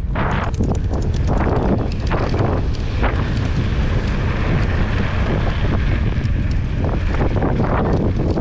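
Wind buffeting a GoPro's microphone as a mountain bike rides down a trail, with many sharp clicks and knocks from the tyres and bike over rough ground, thickest in the first few seconds.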